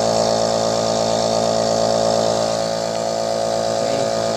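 Nebulizer's air compressor running with a steady, even hum.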